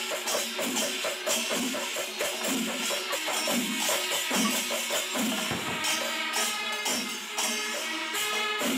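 Percussion-led music with a fast, steady beat of jingling cymbals and drums, and a pitched melody line over it.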